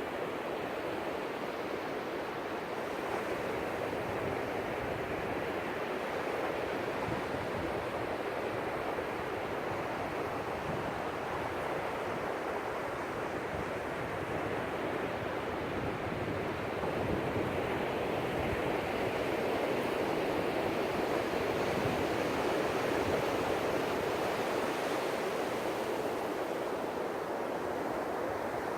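Ocean surf: waves breaking and washing up the beach in a continuous rush that slowly swells and eases, rising somewhat past the middle.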